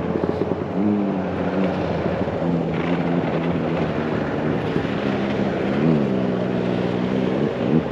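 Snowmobile engines running on the lake ice, a steady drone whose pitch shifts as the sleds move and rev, dipping and climbing again about six seconds in.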